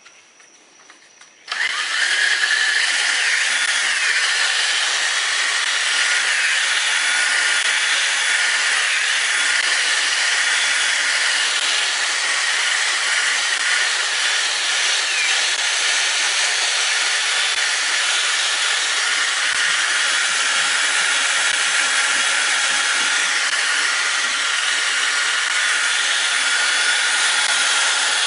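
Cordless drill starting up about a second and a half in and running steadily, spinning a buffing pad with polish against an oxidized plastic headlight lens.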